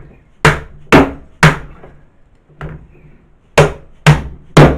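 Orange soft-faced mallet striking a white plastic pipe used as a driver to tap a ball bearing onto a Rotax 583 two-stroke crankshaft. Two sets of three sharp blows land about half a second apart, with a lighter blow between the sets. The bearing has to be bumped on because it was not hot enough and had cooled, as the owner believes.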